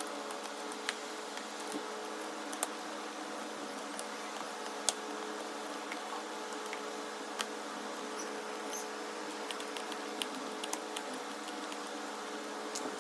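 Scattered light clicks and taps of a car Android head unit being screwed and clipped into its plastic dash frame, a few seconds apart, over a steady background hum.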